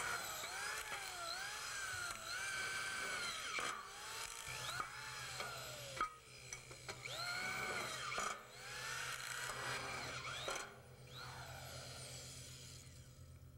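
Corded electric screw gun driving screws into galvanized steel framing: its motor whine rises and falls in pitch again and again as it spins up and loads, with short breaks between screws. It stops about three-quarters of the way through.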